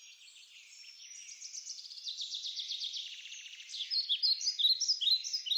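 Songbirds chirping and trilling, a background birdsong ambience that starts faint and grows louder, with a rapid trill in the middle and short varied chirps toward the end.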